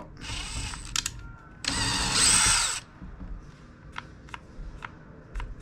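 Battery drill boring out a hole in two short runs, the second louder, then a series of faint clicks with the motor no longer running: the drill's battery is dead.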